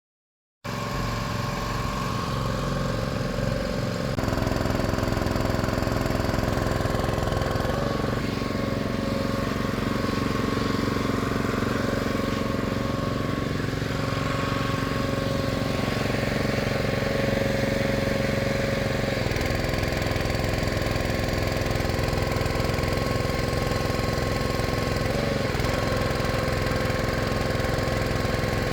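Small gasoline engine of a homemade hydraulic well-drilling rig, a used Predator 212, running steadily under load. It cuts in just after the start, and its note shifts slightly a few times.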